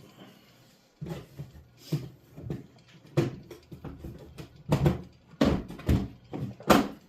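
A string of irregular knocks and clunks, hard objects handled and set down on a workbench, with the loudest ones near the end.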